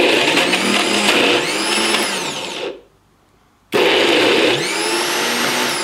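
High-power personal blender motor running in two bursts, pulsed by pressing the cup down onto the base, to grind chickpeas, tahini, lemon juice and garlic into hummus. The first burst stops about three seconds in and the second starts under a second later, its whine rising and falling in pitch.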